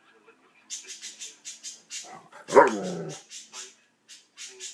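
Anatolian Shepherd and Akbash dogs play-fighting: one bark, falling in pitch, about halfway through, among a run of short, hissy sounds about three a second.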